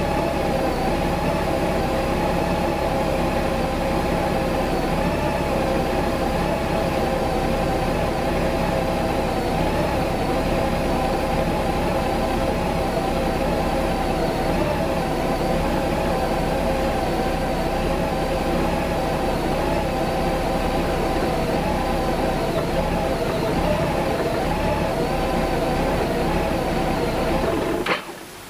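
Honda GL1800 Gold Wing's flat-six engine idling steadily at operating temperature, a rough idle that the title puts down to a fuel pump voltage surge. The sound cuts off suddenly near the end.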